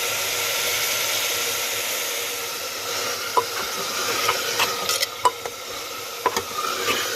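Soybean keema and potato curry sizzling in a pan while it is stirred: a steady frying hiss, with sharp taps and scrapes of the spatula against the pan from about halfway in.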